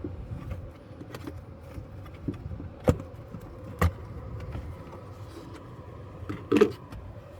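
Steady hum of the running car, with three sharp plastic clicks and knocks from the cabin air filter cover's clips being pressed and worked behind the lowered glove box; the loudest comes near the end.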